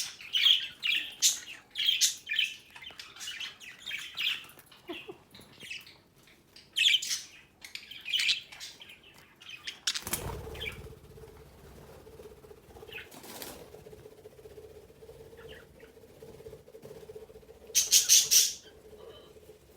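Budgerigars chirping and chattering in quick short calls for the first half, then a sudden thump about halfway through, after which the birds fall mostly quiet over a faint steady hum until one loud burst of chirping near the end.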